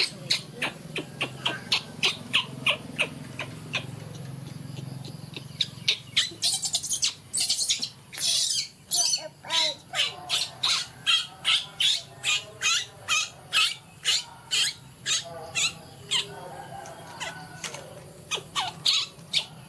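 A baby monkey's high-pitched squeaking calls, short and repeated in long runs of two or three a second, louder and more insistent in the second half.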